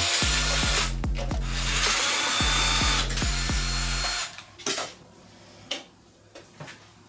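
Cordless drill-driver running as it backs out the screws of a plasma cutter's rear panel, with a regular ticking about four times a second. It pauses briefly about two seconds in and stops about four seconds in, followed by a few light knocks of handling.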